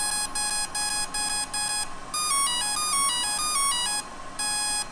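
The T-1 Ranger's electronic speed controller (ESC) beeping during throttle calibration, with the throttle being brought down after the battery was plugged in at full throttle. There is a run of short, even beeps, about three a second. About two seconds in comes a stepping tune of tones, and near the end a long beep.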